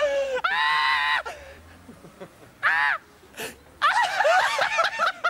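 A man laughing in high-pitched shrieks. There is a long squeal near the start, a short shriek about two and a half seconds in, and a run of wavering cackles near the end.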